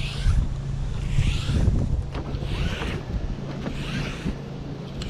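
Wind buffeting the microphone with a steady low rumble, joined by a regular hissing swish that comes back a little over a second apart.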